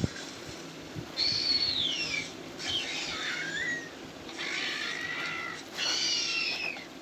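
Dinosaur sound effect: four high, screeching calls, each about a second long, with the pitch sliding downward and wavering.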